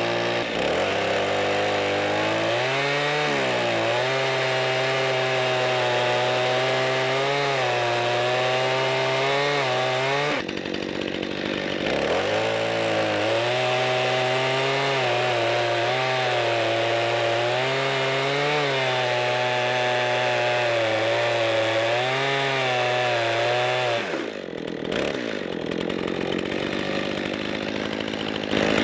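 Gas chainsaw ripping an elm log lengthwise along the grain, its engine at high speed with the pitch dipping and recovering under load. About ten seconds in it eases off for a second or so before cutting again, and a few seconds before the end it drops to a lower, steadier speed as the cut finishes.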